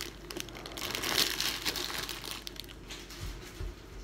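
Plastic instant-ramen packet crinkling and crackling as it is handled and crumpled, loudest about a second in and then dying away, with a couple of soft bumps near the end.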